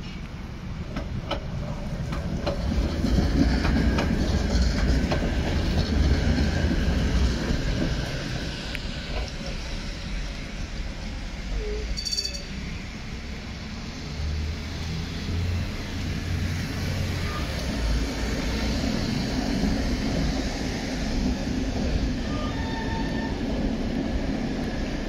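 Tatra T3 trams running on the rails: a steady rumble of wheels on the track, loudest a few seconds in, with some wheel squeal as the cars take the curves.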